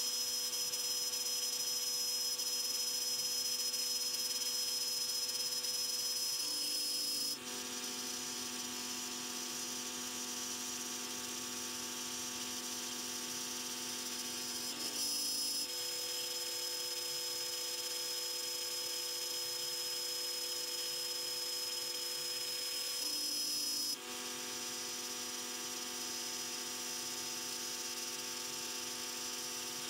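CNC router running, its router spindle giving a steady high whine over a lower motor hum. The lower tones shift pitch and the level dips slightly a few times, about 7, 15 and 24 seconds in.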